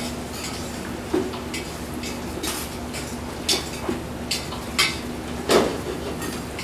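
Kitchen clatter: metal utensils and pans clinking and knocking now and then, about five or six sharp strikes, over a steady low hum.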